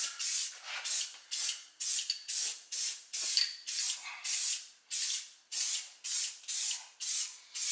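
Aerosol spray can of primer hissing in short, even bursts, about two a second, as a first coat is laid on.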